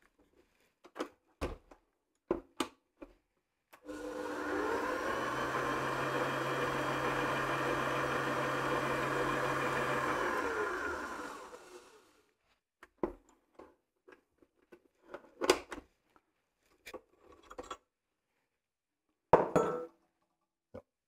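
Kenwood Titanium Chef Baker XL stand mixer running with its dough hook turning in the empty stainless steel bowl: the motor speeds up about four seconds in, runs steadily for about seven seconds, then winds down and stops. Short clicks and knocks of the machine being handled come before and after the run.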